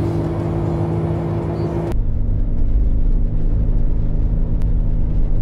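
Music with held notes cuts off about two seconds in, leaving the steady low rumble of a Jeep Wrangler JK Unlimited driving, engine and tyre noise on a wet, greasy road.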